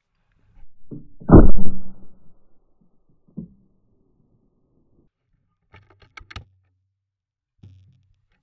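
A single over-under shotgun shot about a second in, very loud and muffled with a short rumble after it, heard from right on the gun. A few seconds later come a few sharp metallic clicks as the gun is handled.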